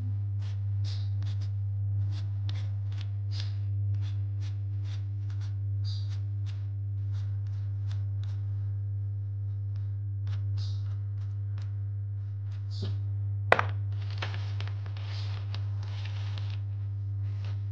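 Hand-held vegetable peeler scraping the skin off a potato in quick repeated strokes, about two a second, over soft background music with a steady low hum. The strokes give way near the end to one sharp knock and a few seconds of rustling.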